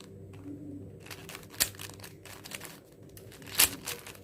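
Plastic 4x4 Rubik's cube being turned by hand: a few scattered clicks of the layers snapping into place, the loudest near the end, over a faint steady hum.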